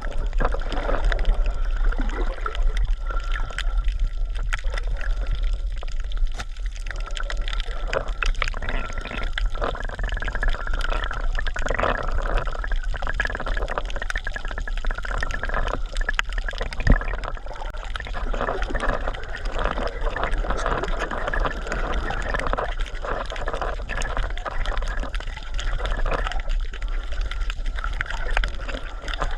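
Water sloshing and gurgling steadily, with scattered small clicks and a low rumble throughout.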